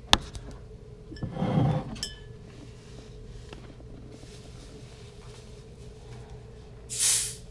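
A large plastic drink bottle is set down hard on a wooden table with one sharp knock. Near the end comes a short hiss, likely the cap of a green soda bottle being twisted open.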